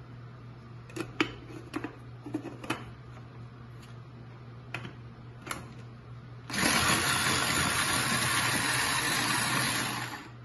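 Several light clicks and knocks, then, about six and a half seconds in, an electric mini food chopper's motor runs steadily for almost four seconds, chopping tomatoes in its jar, and stops.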